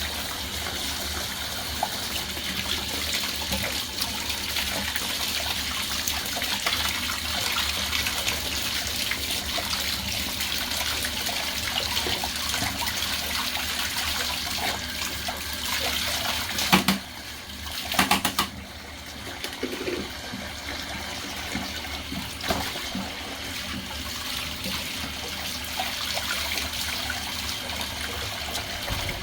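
Water running from a bathtub spigot, splashing as a dusty vacuum filter is rinsed under it. A little past halfway the rush briefly drops quieter, with two knocks.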